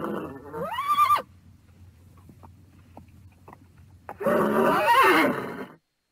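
A horse whinnying twice: a call rising in pitch that ends about a second in, then a longer, louder whinny with a wavering pitch from about four seconds in that cuts off suddenly.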